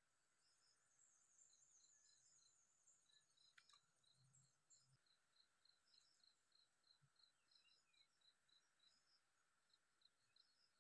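Near silence: faint outdoor ambience with small high chirps repeating about three times a second, and a brief faint trill in the first few seconds.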